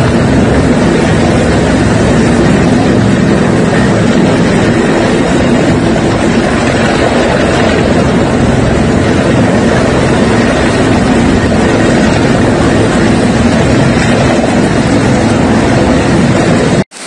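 Rescue helicopter hovering low overhead, its rotor making a loud steady noise while it winches a person up. The sound cuts off suddenly near the end.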